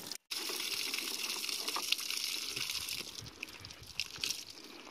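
Water gushing out of a plastic gallon jug, giving way after about three seconds to a few light knocks from the jug being handled.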